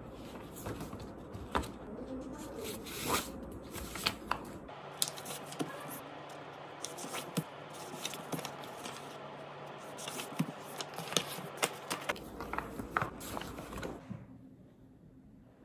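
Sheets of paper being handled at a desk: squared into a stack and leafed through, giving rustling with many short taps and snaps, which die away near the end.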